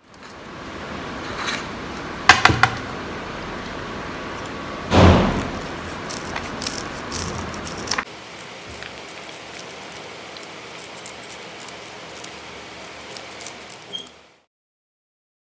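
A knife cutting vegetables on a plate, with sharp clicks about two seconds in and a heavier knock about five seconds in. After about eight seconds come quick, light snips of scissors cutting through tropical amaranth stems and roots.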